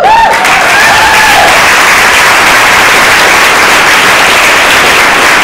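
Audience applauding loudly and steadily, with a few voices whooping and cheering in the first second or so.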